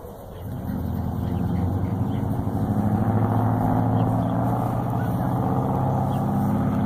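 A motor vehicle's engine running with a steady low hum, growing louder over the first few seconds and then holding steady.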